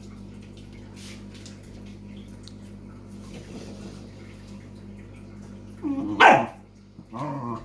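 A dog barks once, loudly, about six seconds in, then gives a shorter, lower-pitched bark near the end: play barking while wrestling with a cat.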